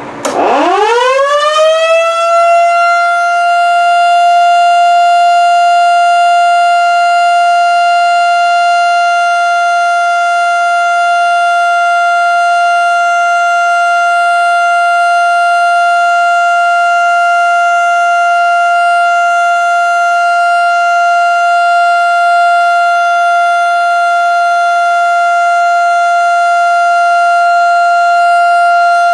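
1955 Model 2 electromechanical outdoor warning siren sounding the Alert signal: it winds up quickly over about two seconds, then holds one loud, steady tone.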